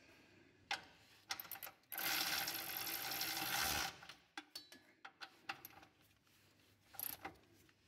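A few clicks as a cordless ratchet is fitted onto a rear engine mount bolt, then about two seconds in the ratchet's motor runs steadily for nearly two seconds, spinning the bolt in. Scattered clicks and light knocks from the tool and bolt follow.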